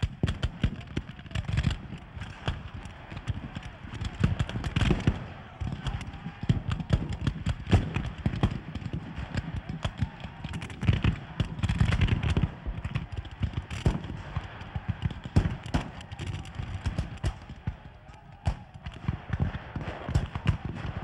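Black-powder rifle-muskets firing in a dense, irregular crackle of many shots, with men's voices among them.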